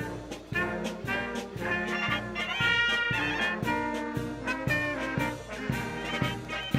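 Brass band music: sustained wind-instrument melody notes over a steady beat.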